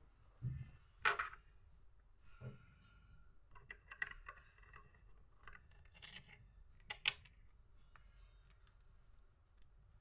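Plastic Lego bricks being handled and snapped together: scattered sharp clicks, the loudest about a second in and about seven seconds in, with softer clicks and rattles between.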